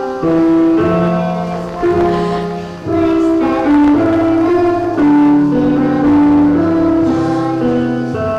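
Keyboard music playing sustained chords that change about once a second.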